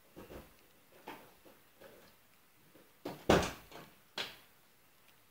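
A few light knocks and handling sounds, then two louder clunks about three and four seconds in: a car door being unlatched and opened. The engine is not running.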